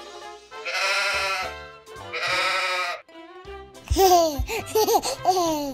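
Sheep bleating twice, each bleat about a second long, over light children's background music. From about four seconds in comes a louder burst of cartoon sound effects: a couple of knocks and several quick rising-and-falling whistle-like glides.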